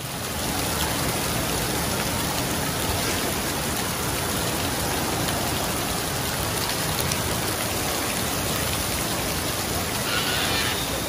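Steady rush of running water on a waterpark water slide and play structure, with a brighter splash near the end as a rider lands in the slide's runout pool.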